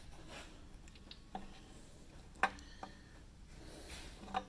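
A few sharp metal clinks as loose engine parts are handled and knocked against the opened aluminium crankcase of a Honda MC14E motorcycle engine, the loudest about halfway through, with a brief ring.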